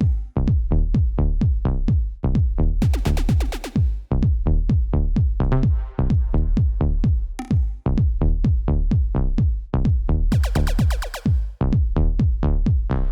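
Electronic dance music with a steady drum-machine beat, about four pulses a second.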